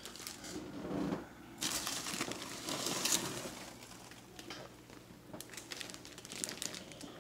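Plastic shipping bags crinkling and polystyrene packing rustling as hands rummage in a foam-lined shipping box. It comes in uneven bursts, loudest from about one and a half to three seconds in, with smaller crackles after.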